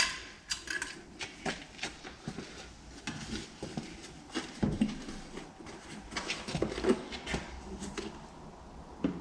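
Scattered clicks, taps and a few duller knocks of a plastic engine-oil container being picked up and handled while topping up the tractor's engine oil.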